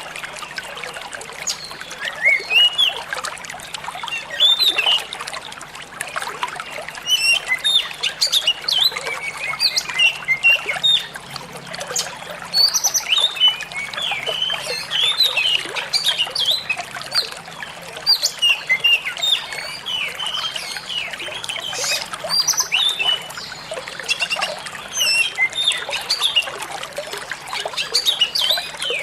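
Oriental magpie-robin singing in bursts of rapid, sharp chirps and whistles over a steady trickle of running water.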